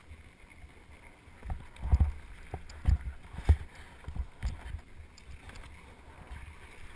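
Wind buffeting an action camera's microphone during a ski descent, over the steady run of skis on packed snow. A cluster of heavy low thumps comes from about one and a half to five seconds in.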